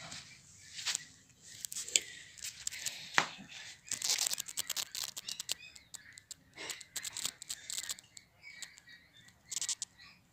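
Leafy plant seedlings being handled: irregular rustling and crackling of leaves and stems as bunches are picked up and dropped into styrofoam boxes.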